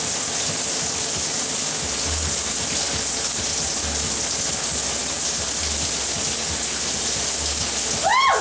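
Shower head spraying water steadily into the tub. Near the end there is a brief pitched sound that rises and falls.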